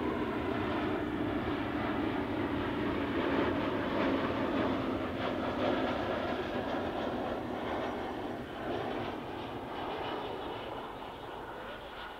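Jet engines of an Airbus A321-212 (CFM56-5B turbofans) coming in to land: a steady jet rumble with a low hum. It is loudest around the middle, then fades away toward the end.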